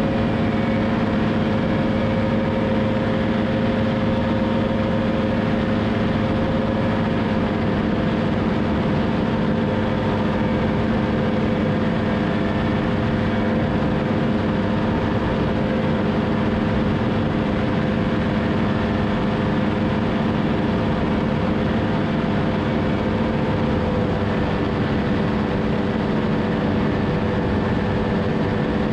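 Two-stroke paramotor engine and propeller running steadily at climb power, a constant drone over a rush of wind noise.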